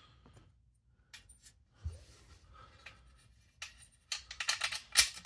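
Hard plastic and metal clicks of a Mercedes grille badge being handled against the grille and fitted into its alignment notch: a few faint scattered clicks, then a quick run of taps from about four seconds in, ending in one sharp click near the end as the badge seats.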